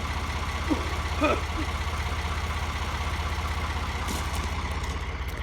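Ford 4610 tractor's three-cylinder engine idling steadily with an even pulse, left running to warm up on a cold morning. A few brief faint chirps sound in the first second and a half.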